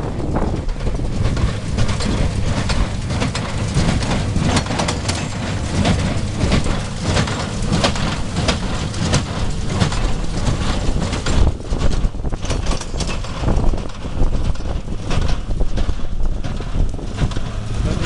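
Tractor engine running steadily as it pulls a Claas small square baler, with the baler's mechanism clattering and knocking as it picks up straw and presses it into bales.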